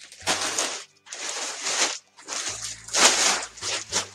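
Clear plastic bag crinkling as it is handled, in three long spells of rustling.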